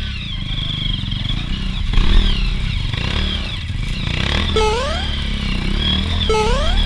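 Dirt bike engine running, with a louder surge about two seconds in. Twice in the second half a short rising whine cuts in over it.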